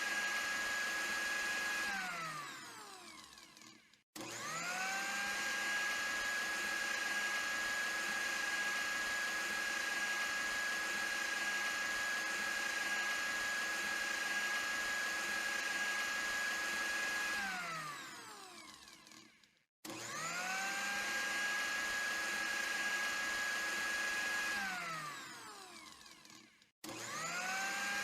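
Electric blender motor running with a steady high whine. It is switched off three times, winding down in falling pitch to a stop, and switched back on at once each time, spinning up quickly to full speed.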